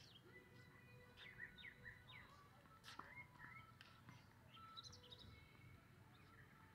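Faint birdsong: small birds chirping with quick rising and falling calls throughout, over a quiet outdoor background, with a single faint knock about three seconds in.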